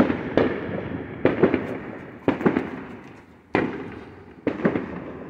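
Fireworks going off: a run of about eight bangs, some in quick pairs, each fading out over a second or so.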